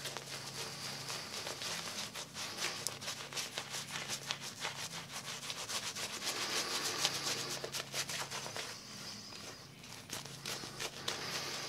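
Shaving brush scrubbing soap into a lather on the face, a rapid, continuous wet rubbing of bristles over skin. The lather is still being built on a thirsty soap, the brush dragging as it works.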